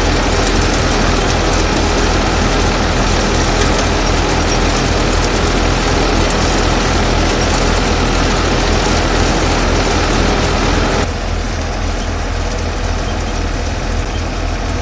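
Fiat 480 tractor's diesel engine running steadily under load, driving a belt-driven threshing machine that is threshing pearl millet: a loud, even mechanical drone with a low engine hum and the thresher's constant rushing rattle. It becomes a little quieter about eleven seconds in.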